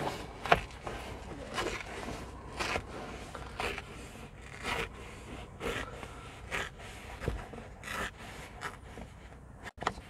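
Hands working the front edge of a convertible's fabric soft top free of the roof frame: short scrapes and rustles of fabric and plastic, about one a second.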